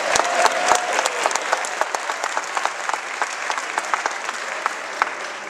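Audience applauding, loudest at the start and thinning out towards the end.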